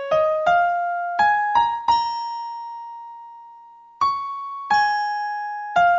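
Background music: a slow electric piano melody of single notes climbing step by step. One note is held for about two seconds in the middle before the notes go on.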